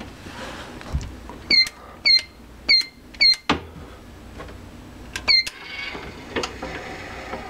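Electronic keypad of a hotel-room safe beeping as the code is entered to open it: four short high beeps about half a second apart, a sharp click, then a quick double beep about five seconds in. A couple of seconds of mechanical whirring follow as the safe's lock works.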